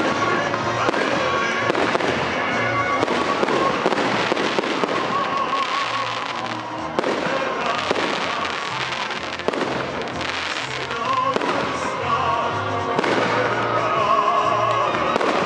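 Aerial fireworks shells bursting and crackling again and again, mixed with loud music that has a steady bass line.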